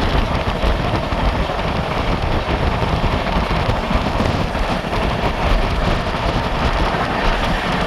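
Express passenger train running at high speed: a steady rush of wheel-on-rail rumble and wind noise, with no let-up.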